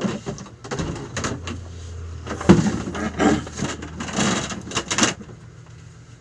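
Goods and cardboard being handled and moved about: a busy run of knocks, scrapes and rustling that stops about five seconds in, leaving a steady low hum.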